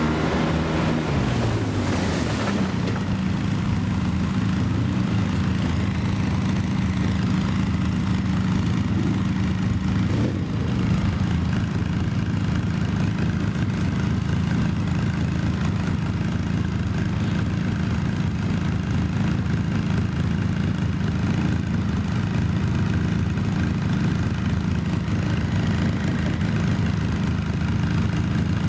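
ATV engine running at low, steady revs while wading through a shallow creek, its pitch falling during the first couple of seconds as the revs drop.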